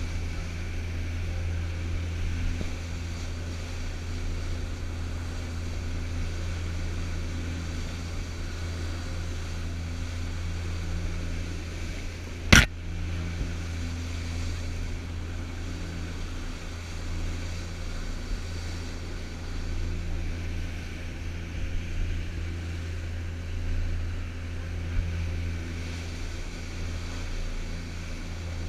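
Passenger boat's engines running steadily at cruising speed, a deep hum under the rush of the wake and wind. One sharp click a little before halfway.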